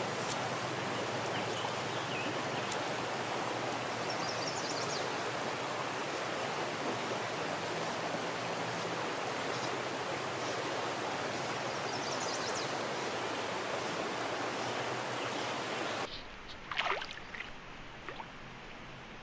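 River water flowing: a steady, even rush that stops abruptly about sixteen seconds in, leaving a much quieter stretch with a few faint swishes.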